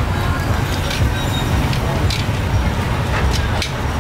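Steady low rumble of city street traffic, with a few scattered light clicks from metal tongs working meat on a charcoal grill.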